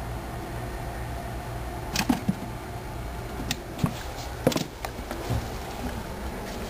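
A cat's tail whacking against a wall: several irregular thumps, the sharpest about two seconds in and again about four and a half seconds in, over a steady low hum.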